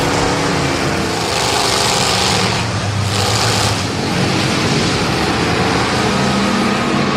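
Demolition derby cars' engines running and revving together, with two short bursts of hiss about a second and a half and three seconds in.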